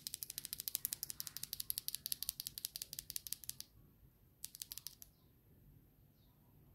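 Fast typing on a Keychron V6 Max mechanical keyboard with prelubed Akko Cream Blue Pro V3 switches and MDA-profile keycaps: a quick run of keystrokes, about ten a second, lasting some three and a half seconds, then a pause and a short second burst of keystrokes.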